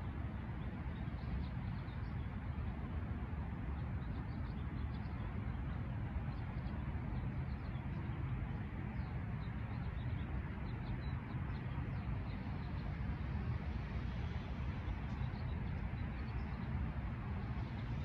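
Steady low outdoor rumble with many faint, short, high bird chirps scattered through it.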